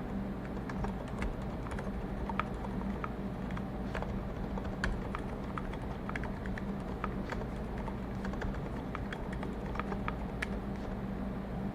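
Typing on a mechanical keyboard with lubed, filmed MX Zilents silent tactile switches under GMK keycaps on a brass plate: a quick, irregular stream of soft, muted key presses. Under it runs a steady low hum of room noise, picked up by a microphone turned up high.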